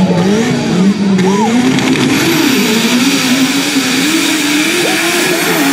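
Two sand drag vehicles launching off the line, engines revving hard with the pitch climbing and dipping as they pull away. A loud hiss builds over the engines from about two seconds in.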